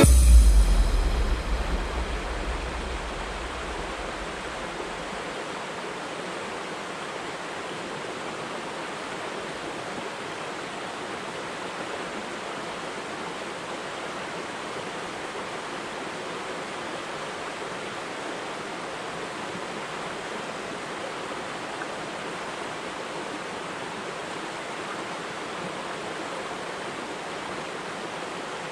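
Steady rush of a shallow forest creek flowing over rocks and small riffles, after the tail of the music fades away in the first few seconds.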